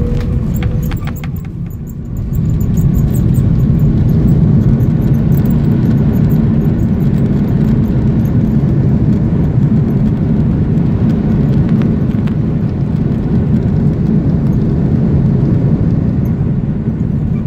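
Cabin noise of an Airbus A330-300 with Rolls-Royce Trent 772B engines at touchdown and landing rollout. A few sharp knocks come in the first second, then about two seconds in a loud steady low rumble of engines and runway rises as the ground spoilers go up, and it holds.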